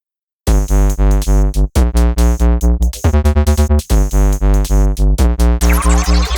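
Electronic background music with synthesizer and a steady drum-machine beat. It starts about half a second in, and a rising synth sweep comes in near the end.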